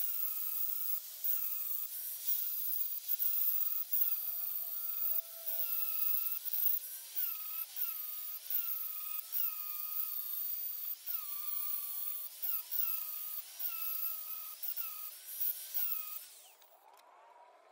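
Angle grinder grinding the steel face of an anvil, taking down the high spots to flatten it. The motor's whine sags in pitch each time the disc is pressed into the steel and recovers as the pressure eases, again and again. It stops about sixteen seconds in.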